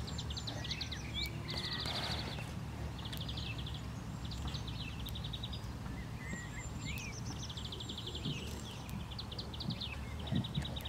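Small songbirds singing: short, rapid, high-pitched trills repeated every second or two, with scattered chirps, over a steady low rumble.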